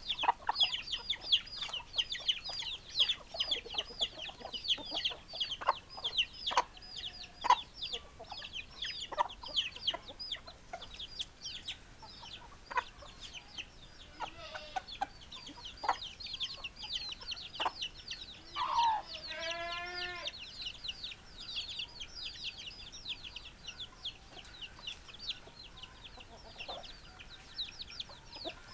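Chickens: a continuous run of high, quick peeps, with short clucks now and then. About two-thirds through comes one longer drawn-out call.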